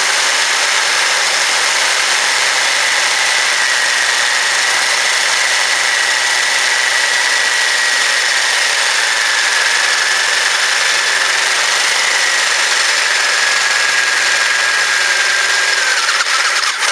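Electric drill running steadily under load while boring a 1/2-inch hole, its motor whine drifting slowly lower in pitch before it stops near the end.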